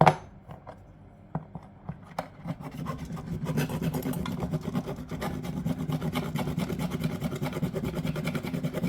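A metal fuse-box part being filed to test what metal lies under the surface. After a few light handling clicks, a fast, continuous rasping starts about two and a half seconds in and cuts off suddenly at the end.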